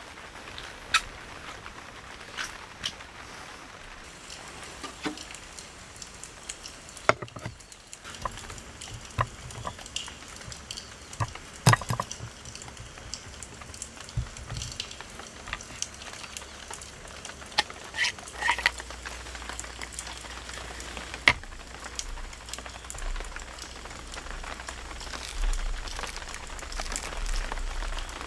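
Steady patter of rain, with scattered light clicks and knocks from vegetables and cookware being handled.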